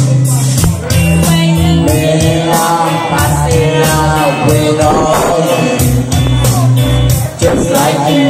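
Karaoke singing over a backing music track with a steady beat.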